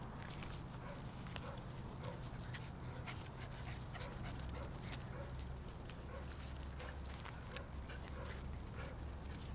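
Young puppies whimpering with short, repeated whines as they play, over light scuffling and a few sharp clicks on gravel, the loudest about halfway.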